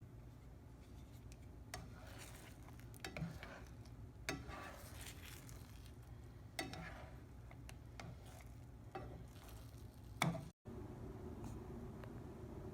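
Faint scraping and scattered light clinks and knocks of cutlery against a dish while eating breakfast. The sound cuts out briefly about ten seconds in, after which only a low steady hum remains.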